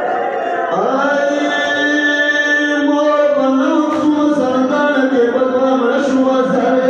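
A solo voice chanting a Pashto noha, a Shia mourning lament, holding one long drawn-out note that rises slightly in pitch about halfway through.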